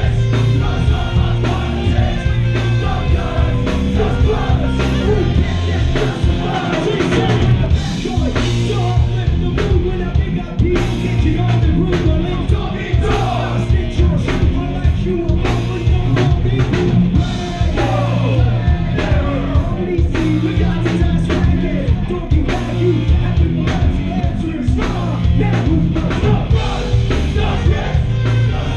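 Live rock band playing loud: electric guitar, drum kit and saxophone, with shouted and sung vocals.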